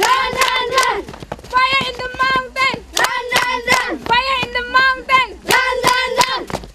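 A group of girls singing a song together, with sharp hand claps keeping the beat.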